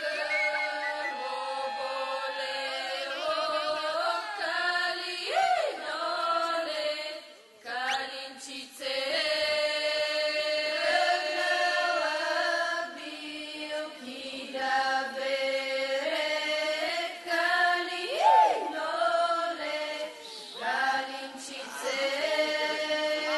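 A group of women singing a Bulgarian ritual folk song without instruments, in long held phrases, with a short break about eight seconds in. Twice a voice swoops briefly up and back down.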